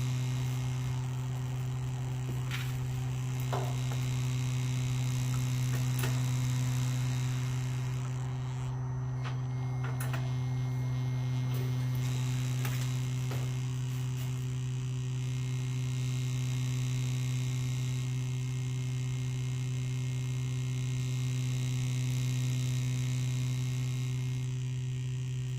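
Steady low electrical hum with a few light clicks scattered through it.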